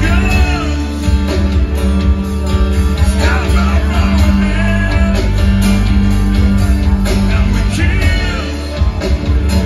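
Live band playing amplified music: sung phrases over guitar, bass and drums, heard through the hall's PA from within the audience.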